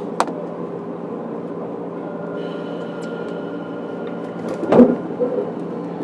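Onboard running sound of a JR 103 series 1500 electric train, heard inside motor car MoHa 103-1503: a steady hum, a sharp click near the start, a faint high tone coming in about two seconds in, and a loud thump about five seconds in.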